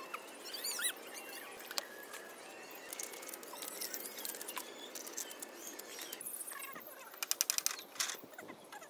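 Knife scraping scales off a fish on bamboo slats, with a quick run of rasping strokes near the end. Birds chirp in the background.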